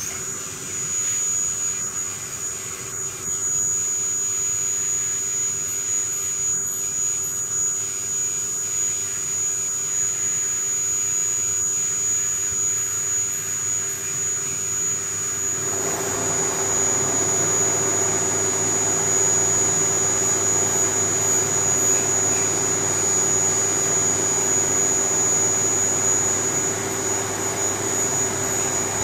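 CNC vertical mill's spindle running at speed with a high steady whine and a lower hum while it mills an aluminium plate. About halfway through, a louder steady rush of flood coolant spray and cutting joins and stays.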